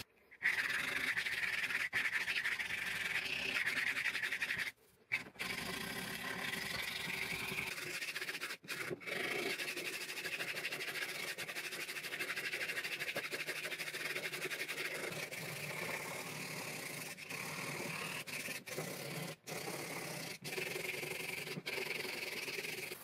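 Hand-sanding a black micarta knife sheath: steady scratchy back-and-forth rubbing, cut off briefly a few times.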